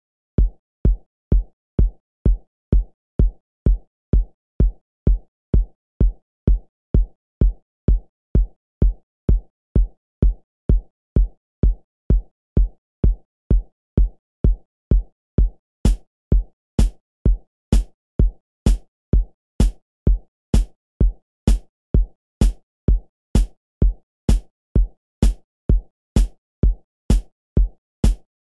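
Electronic dance track intro made on a Roland FA-06 synthesizer: a drum-machine kick drum on a steady beat, about two hits a second. About halfway through, a sharp, crisp hit joins on every other beat.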